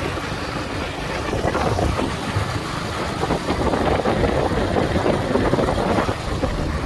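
An engine running steadily with a low, rough rumble.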